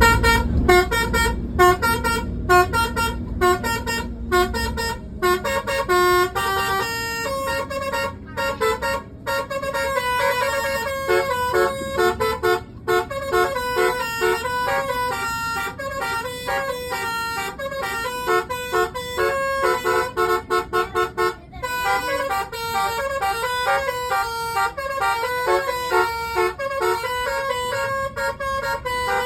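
Tourist bus's multi-tone 'telolet' air horn playing a quick tune of short stepped notes, with a couple of brief breaks. A low rumble sits under the first few seconds.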